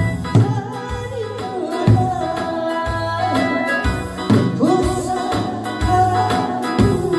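Korean trot song music with a steady low beat about once a second under a melody line that bends and glides in pitch.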